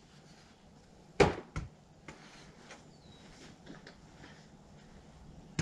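A thrown small ball strikes its target with one sharp knock about a second in, followed by a lighter knock about half a second later. A few faint clicks come later as balls are handled in a bucket.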